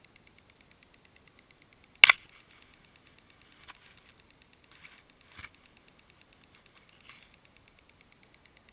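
Underwater GoPro housing knocking against the zebra-mussel-covered lakebed: one sharp, loud knock about two seconds in, then four fainter knocks and scrapes. A faint, steady ticking about four times a second runs underneath.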